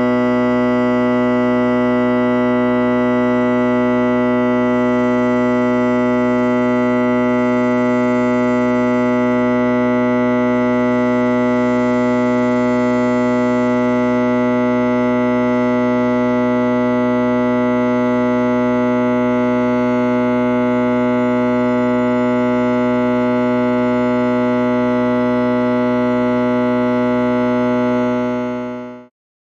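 Electric buzz: a loud, steady hum on one low pitch with many overtones, unchanging until it fades out near the end.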